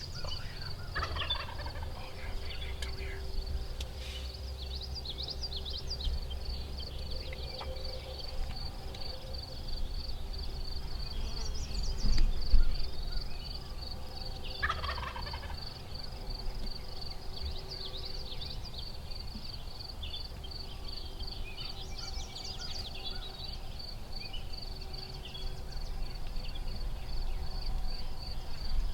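Wild turkey gobbling twice, about a second in and again around the middle, each gobble a rapid falling rattle. A steady, evenly pulsing high trill runs underneath, and there is a low thump a little before the second gobble.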